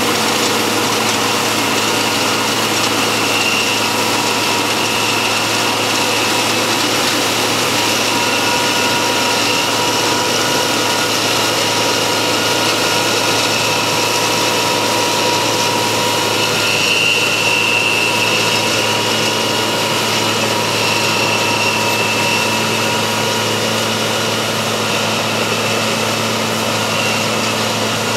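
Farm machinery engine running steadily under load, a constant mechanical drone with a steady whine on top.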